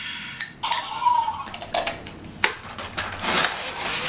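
Hard plastic toy train and its plastic track clicking and knocking as a toddler grabs the train and pushes it along by hand: a run of separate sharp clicks at uneven intervals.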